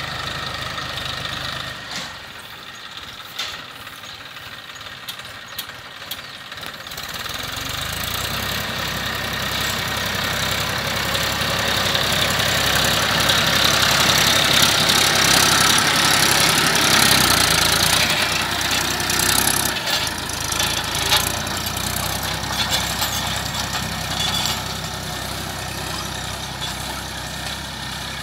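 Massey Ferguson 1035 DI tractor's three-cylinder diesel engine running under load as it pulls a cultivator through dry soil. It grows louder as the tractor comes close near the middle, then fades as it moves away.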